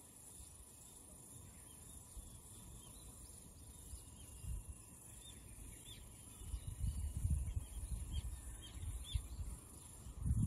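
Outdoor ambience: faint short bird chirps scattered through, over a steady high insect drone, with low gusts of wind buffeting the microphone that grow stronger in the second half.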